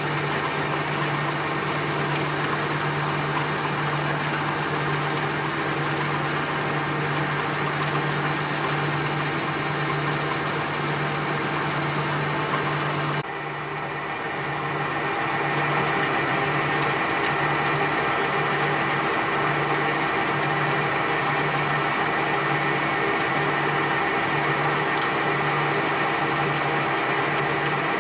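Machinery running steadily with a low hum and a hiss of mechanical noise. About halfway through the sound changes abruptly, and after that the hum pulses roughly once a second.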